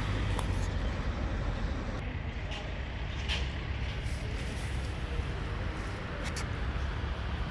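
Steady low rumble of street traffic, with a few short clicks over it.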